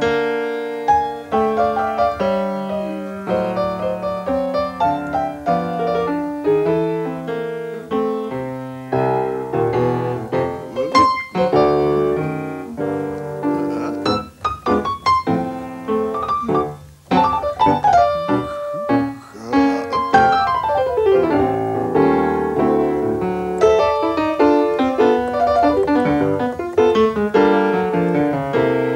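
Solo jazz piano: dense chords and fast runs, with quick sweeping runs up and down the keyboard around the middle.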